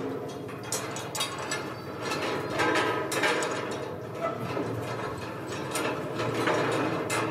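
Steel pipe being worked with a hand bending bar: rapid, irregular metallic clicks, knocks and scraping as the tool grips and levers the pipe.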